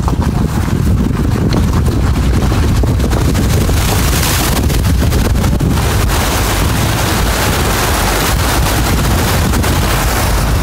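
Car fording a creek: water rushing and splashing around the car over a steady low rumble, the splashing heaviest about four to six seconds in.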